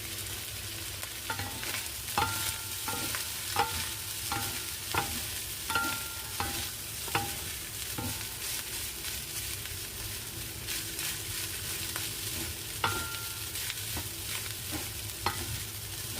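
Fried rice sizzling in a hot pan while being stir-fried, the metal spatula repeatedly clanking against the pan with short ringing clinks, spaced roughly every half second to second at times and pausing in the middle.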